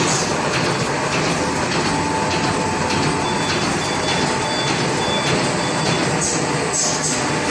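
Automatic double-layer, four-line plastic bag making machine running: a steady, dense mechanical clatter of rollers and feed. A faint high tone pulses on and off for a couple of seconds around the middle.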